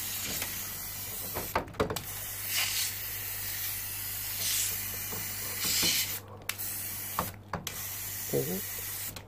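Aerosol can of air-conditioner coil cleaner spraying onto the evaporator fins of a wall-mounted split unit: a steady hiss in long bursts, with short pauses about a second and a half in, around six and seven and a half seconds, and near the end.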